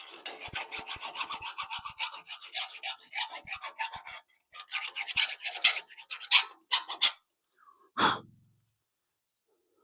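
A metal file scraping quickly back and forth over a sharp edge on a steel pole, deburring the edge so it won't cut fingers. The strokes run for about seven seconds with a short break in the middle, followed by a single knock about eight seconds in.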